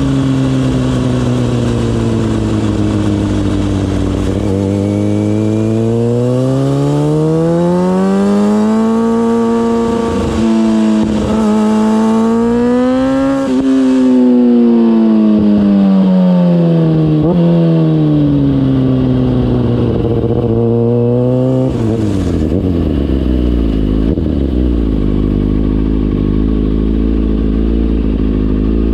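Kawasaki ZX-6R inline-four engine through a MIVV GP exhaust, heard close to the exhaust while riding. Its pitch climbs, holds, dips and climbs again, then falls away. About 22 seconds in it drops to a low, steady note.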